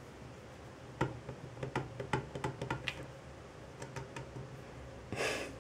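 A cat being petted in a bathroom sink: a run of light, irregular clicks and taps for about two seconds, then a short rustling rush near the end.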